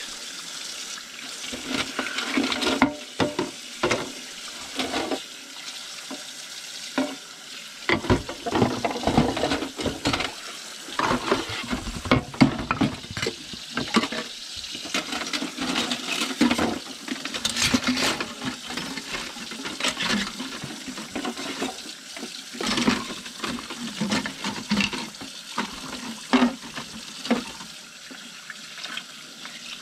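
Kitchen tap running into a sink while dishes are rinsed, with frequent clinks and clatter of dishes being handled under the stream.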